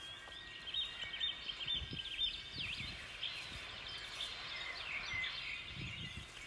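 Small birds chirping: many quick, high calls overlapping, over steady outdoor background noise.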